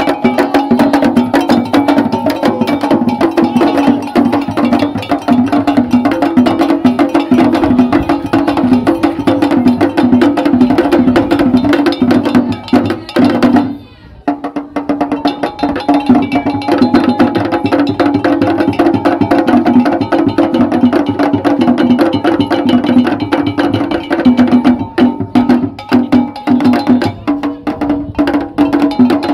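Ga traditional ceremonial percussion music: drums and a clattering wood-block-like percussion played in a dense, fast rhythm. It breaks off for a moment about halfway through, then resumes.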